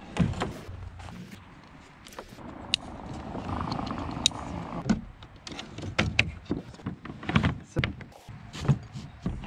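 Hard plastic and metal kayak fittings being handled: a thump near the start, then a run of knocks and clicks as the pedal drive and seat frame are moved and set in place, with a stretch of scraping about halfway through.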